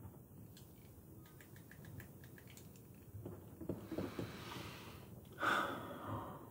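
A person's breath close to the microphone: a few small clicks, a rushing breath about three seconds in, and a louder, sharper one about five and a half seconds in that fades out.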